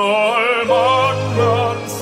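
Operatic singing with wide vibrato on held notes over orchestral accompaniment.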